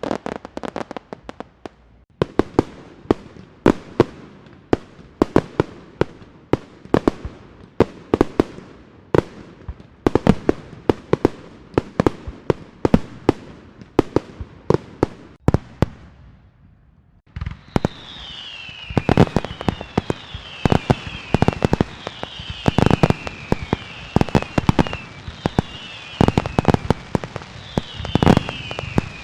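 Fireworks going off: a string of sharp bangs, several a second, for about the first sixteen seconds. After a brief lull comes a denser run of crackling bangs with falling whistles repeating every second or two.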